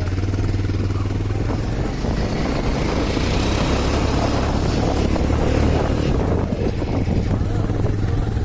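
Bajaj Pulsar 220F motorcycle riding along a rough dirt track, its single-cylinder engine running steadily under way.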